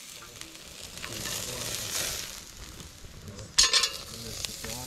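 Armadillo meat sizzling over a charcoal fire as its fat drips onto the coals, swelling for a moment, then a short, louder burst of hiss about three and a half seconds in.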